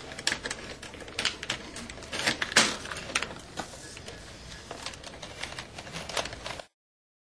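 Rapid, irregular clicking and clattering with a few louder knocks, cutting off suddenly near the end.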